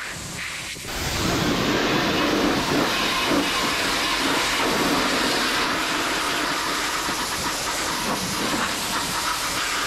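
Pressure washer jet spraying water onto a car body: a loud, steady hiss that steps up about a second in.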